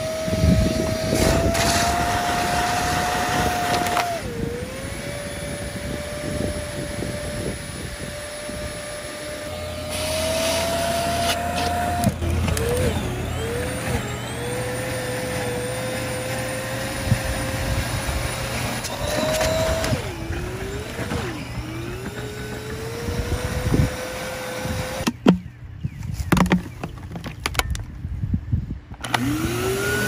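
Bissell Zing bagless canister vacuum running with a steady motor whine that dips in pitch several times. Near the end it goes quiet amid a few knocks, then starts again, the whine rising as the motor spins up.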